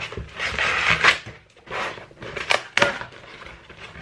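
A padded paper mailer envelope being torn open by hand: ripping and crinkling paper in several bursts, with two sharp tears a little after two and a half seconds in.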